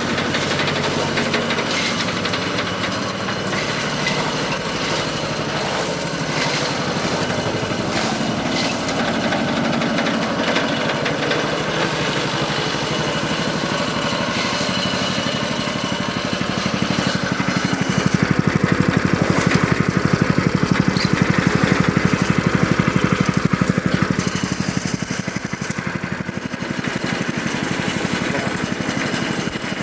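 Animal-feed chopper machine running steadily on its small engine, growing louder for several seconds past the middle before settling back to its earlier level.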